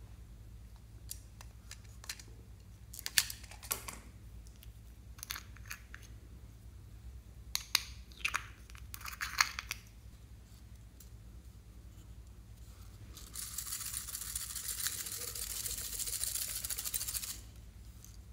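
Sharp clicks and taps of small plastic toys being handled, in a few clusters, then a steady high hiss for about four seconds near the end.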